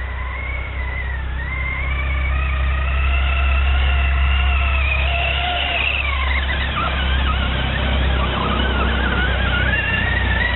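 Electric motor and drivetrain of a Traxxas Slash RC truck whining, its pitch rising and falling with the throttle. It dips and wavers about halfway through, then climbs again near the end.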